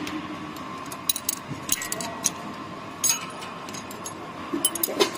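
Steel ring spanner clinking against hex nuts and the steel plate of a tipping machine's blade mould as the nuts are loosened, in several short clusters of sharp metallic clicks.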